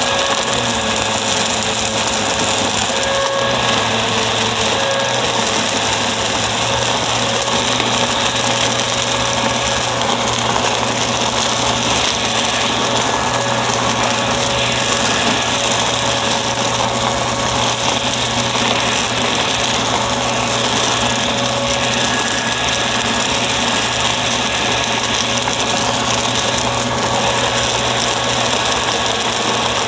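Upright vacuum cleaner running steadily, its motor giving a constant hum and whine over the rush of suction.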